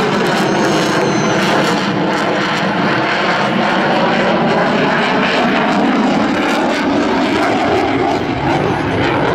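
F/A-18C Hornet's twin General Electric F404 turbofan engines running at high power as the fighter turns overhead: loud, steady jet noise with a slowly sweeping, shifting tone running through it.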